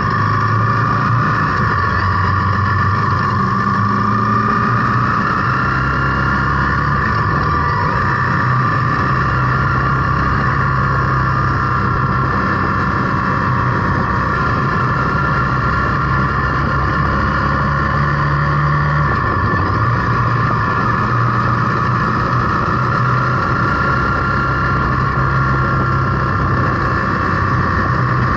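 Zontes T350 motorcycle's single-cylinder engine running while riding along at road speed, its pitch shifting a few times, mixed with wind noise on the microphone.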